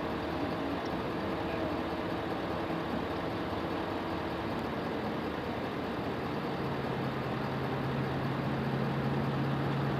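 A vehicle engine idling steadily under a constant outdoor hum, with a low steady drone coming in about six seconds in.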